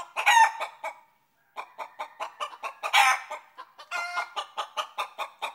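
A chicken clucking: a run of short clucks, about two or three a second, broken by two louder, longer squawks, one right at the start and one about three seconds in.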